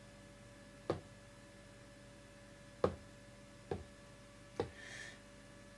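Fingers tapping the pads and buttons of a Native Instruments Maschine MK1 controller: four soft, separate knocks at uneven intervals, then a faint brief rustle near the end.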